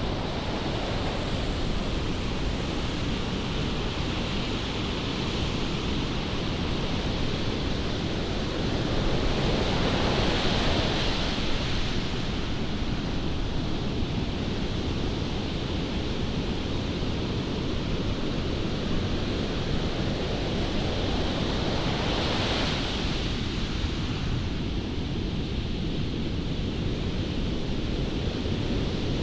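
Strong wind buffeting the microphone over the steady wash of surf, with two louder surges of breaking waves, about ten seconds in and again about two-thirds of the way through.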